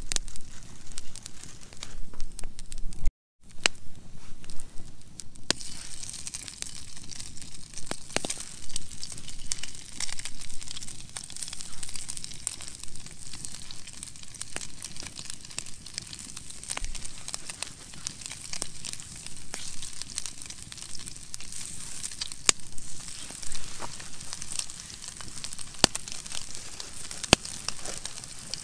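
Wood campfire crackling and popping under a pan. After the sound cuts out briefly about three seconds in, pieces of raw meat sizzle in the hot pan with a steady frying hiss, and the fire keeps popping throughout.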